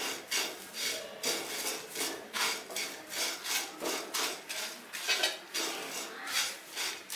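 Spatula stirring and tossing curry leaves, dried red chillies and urad dal as they dry-roast in a non-stick kadai: repeated scraping, rustling strokes against the pan, about two a second.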